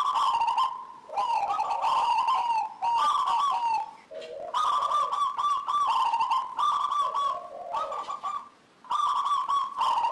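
Zebra dove (perkutut) in full song, cooing in several quick rolling phrases broken by short pauses.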